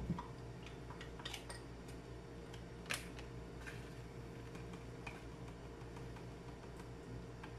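A few faint, sparse clicks of a stirrer knocking against a drinking glass as powdered coconut milk is stirred into water and more powder is shaken in from a sachet, with a soft knock at the very start, over a low steady hum.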